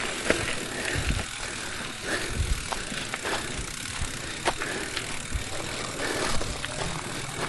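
Mountain bike riding over a rough dirt trail: steady tyre noise on gravel with frequent sharp clicks and rattles from the bike, and scattered low thumps.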